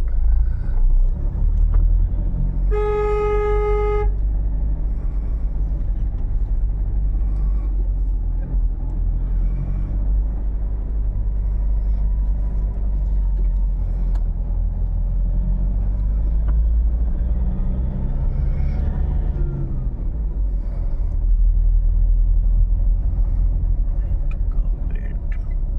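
Steady engine and road rumble of a vehicle moving through traffic, with a single vehicle horn blast lasting about a second, roughly three seconds in.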